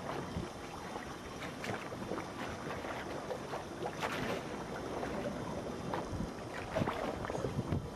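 Wind buffeting the microphone over a steady outdoor hiss, with scattered faint knocks and crackles.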